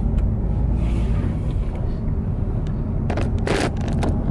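Steady low road and engine rumble heard from inside a moving car. Near the end come a few clicks and a short rustle as the handheld camera is moved and turned.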